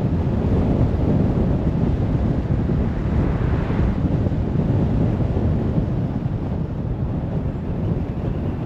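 Steady road and wind noise from a moving car, a low rumble with wind buffeting the microphone, swelling slightly about three seconds in.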